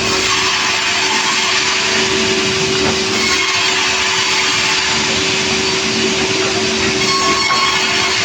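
Motor-driven wood saw running steadily, a loud, even noise with a constant hum.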